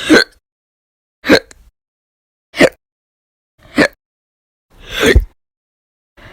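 A woman hiccuping loudly and violently in a steady run, about one hiccup every 1.2 seconds. Each is a sharp, voiced catch of breath. There are five in all, and the fifth is drawn out and the loudest.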